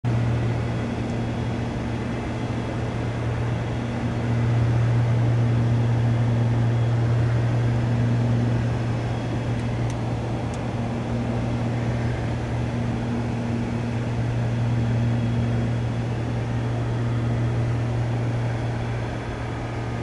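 Piper Seneca III's twin engines and propellers droning steadily in flight, heard from inside the cabin, with a slow throb in the hum that swells and fades every couple of seconds.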